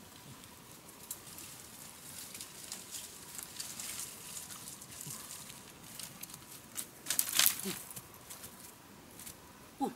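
Dry leaves and twigs crackling and rustling as a person moves through forest undergrowth carrying sticks, with a louder burst of crackling about seven seconds in. A short, sharply rising vocal cry comes near the end.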